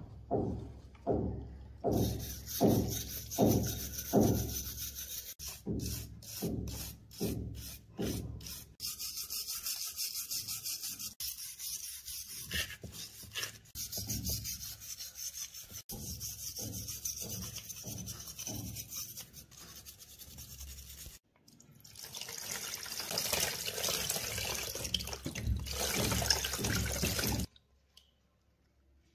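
Wire brush scrubbing rust off a steel pistol's frame and slide: back-and-forth strokes about two a second at first, then faster, steadier scrubbing that stops a little before the end.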